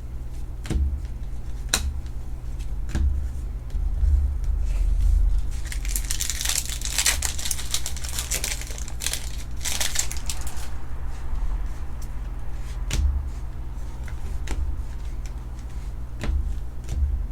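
Foil trading-card pack wrapper being torn open and crinkled for a few seconds in the middle, with scattered sharp taps and clicks of cards and packs handled on a table before and after. A steady low hum runs underneath.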